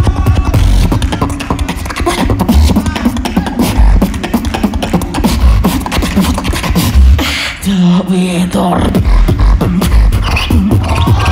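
Solo beatboxing through a hand-cupped microphone and PA: fast, dense kick and snare hits over deep bass, with a short held, pitched bass note about eight seconds in.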